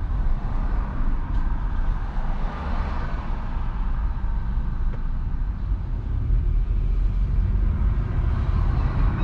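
Car driving along a street: a steady low rumble of road and tyre noise.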